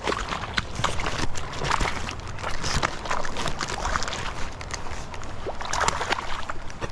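River water splashing and sloshing in quick, irregular splashes.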